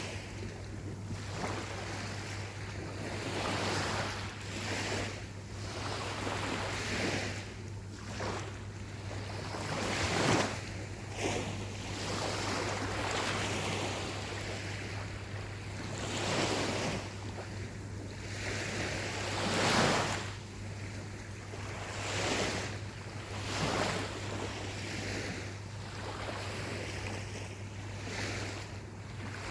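Gentle ocean waves breaking and washing up a beach, surging every few seconds. The largest breaks come about ten and twenty seconds in.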